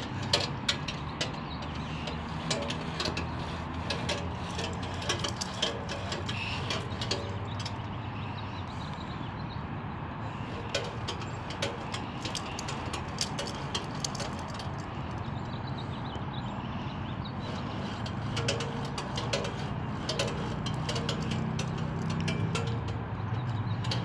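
Outdoor stepper exercise machine clicking and knocking as its foot pedals are worked, over a steady low engine hum.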